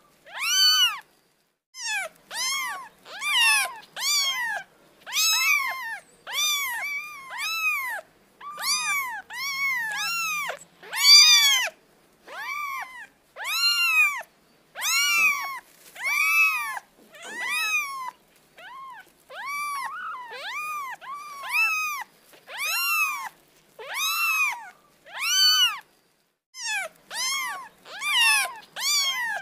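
A cat meowing over and over, about once a second. Each meow is short and high, rising and then falling in pitch.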